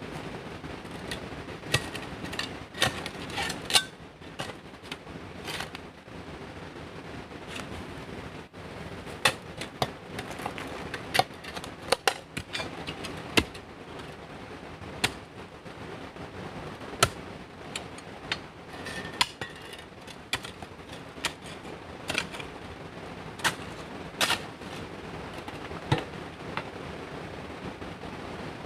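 Irregular sharp knocks and clicks, about one or two a second, over a steady background hiss.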